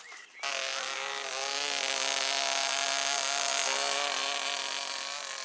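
Tiny 0.17 cc model-aircraft engine running flat out in flight, a steady high-pitched buzz that starts abruptly about half a second in and fades slightly near the end as the plane passes.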